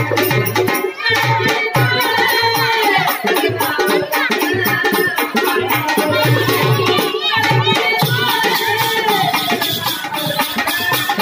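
Live folk devotional music: a voice singing over a steady drum beat, with jingling, rattling percussion throughout.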